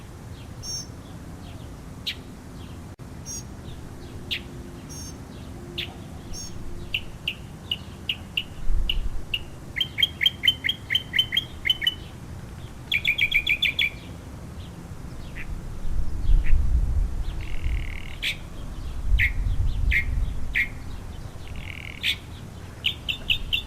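Northern mockingbird singing: a run of varied phrases, each note or chirp repeated several times before switching, with fast rattling trills about halfway through. A low rumble comes and goes in the second half.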